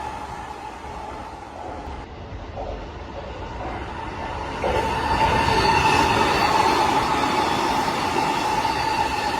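Tokyo Metro 15000 series electric train running, with a steady whine over the rumble of wheels on rail. The sound steps up suddenly and stays louder about halfway through.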